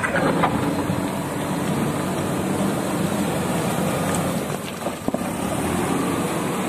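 JCB backhoe loader's diesel engine running steadily while it works fill into a pothole, with a sharp knock about five seconds in.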